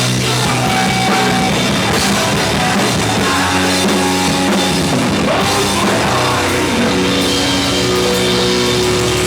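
Hardcore punk band playing loud, heavy rock music live, with a drum kit driving under the guitars.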